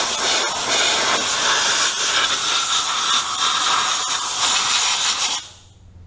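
Compressed-air nozzle on a shop air hose hissing in a steady blast as it blows dirt and debris out around the diesel engine's injectors; the air cuts off suddenly about five seconds in.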